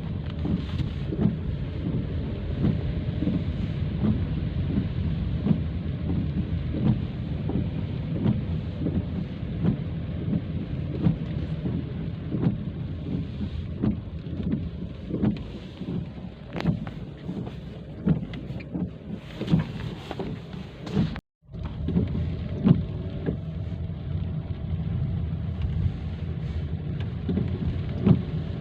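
Heavy rain pouring down, a dense steady rush with a strong low rumble and many sharp drop impacts. The sound cuts out for a split second about three-quarters of the way through.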